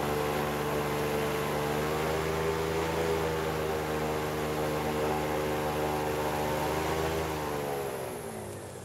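Airboat engine and propeller running steadily at speed over a broad hiss of air. About seven seconds in, the pitch falls as the engine throttles down.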